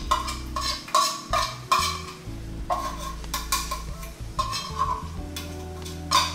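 Metal utensil scraping the inside of an opened tin can of tuna, a run of quick metal-on-metal scrapes and clinks about two a second, as the last of the tuna is dug out into the pan. Under it, a light sizzle from the frying pan.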